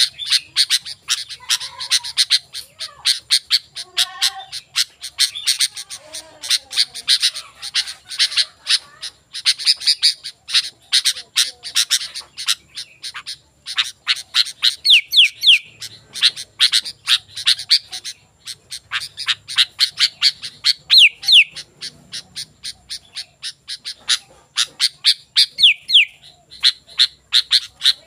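Sooty-headed bulbul (kutilang) in full song: a fast, steady run of short sharp chirps, broken now and then by a quick falling note.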